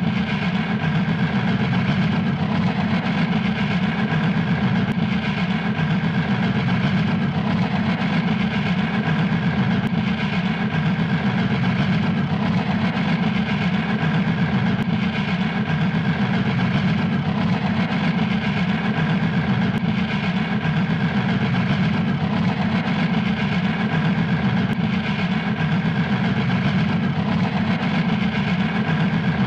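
Steam locomotive puffing fast, its exhaust beats running together into an even, unbroken chuff.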